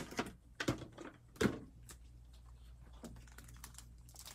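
A few sharp clicks and crackles of stiff clear plastic packaging for Heroclix figures being handled, the loudest about a second and a half in, over a low steady hum.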